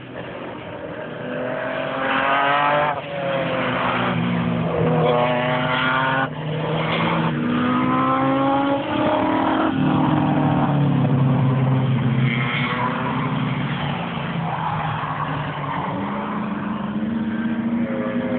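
Turbocharged Peugeot 205 engine revving hard on track. Its pitch climbs in repeated runs and drops back at each gear change, then holds steadier.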